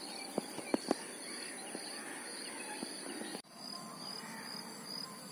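Open-air lakeside ambience: insects chirping steadily and birds calling, with a few sharp clicks in the first second.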